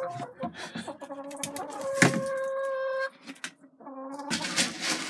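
Brown hens calling with long, drawn-out moaning notes, hungry and waiting to be fed. A sharp knock comes about two seconds in and a short burst of noise near the end.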